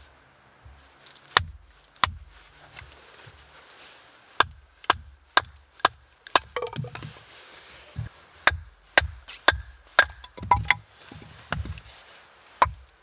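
Wood being chopped: a run of sharp, separate blows with a dull thud under each, irregularly spaced and coming at about two a second for stretches, with short pauses between.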